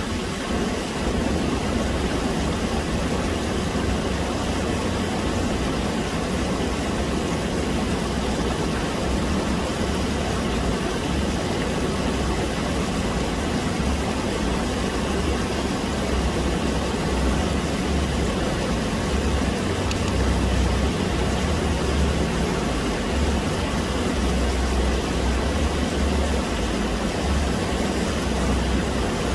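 Stream water rushing and splashing over rocks in small rapids: a steady rush with an uneven low rumble underneath.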